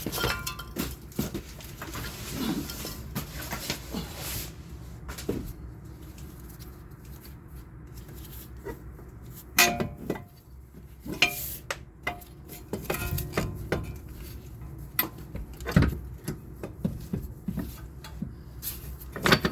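Scattered metal clinks and knocks as a replacement CV axle is worked into the transaxle of a 2006 Lexus ES330, with sharper knocks about ten and sixteen seconds in.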